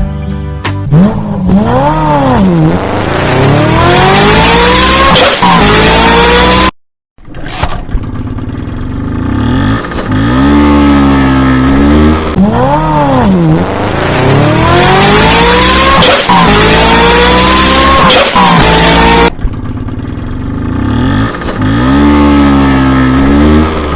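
An engine revving hard again and again, its pitch climbing and falling in long sweeps. It cuts out briefly about seven seconds in, then starts again.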